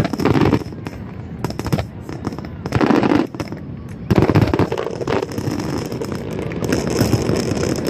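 Fireworks going off: a dense run of rapid crackling pops, with louder bursts near the start, about three seconds in and about four seconds in.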